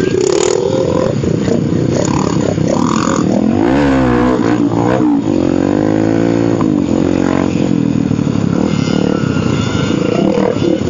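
Dirt-bike engines running in a group ride, the nearest one revving up and down several times a few seconds in over the steady rumble of the others.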